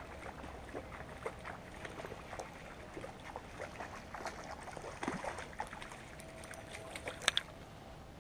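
A hooked shad being reeled in on a spinning rod, splashing at the surface, with scattered light ticks from the reel and line throughout. A louder cluster of clicks and splashes comes about seven seconds in as the fish is swung out of the water.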